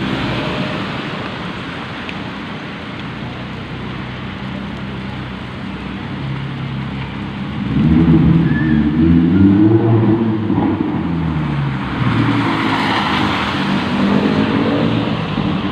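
Lamborghini Huracán's V10 engine running, then revving hard about eight seconds in, its pitch rising and falling, and again a little later.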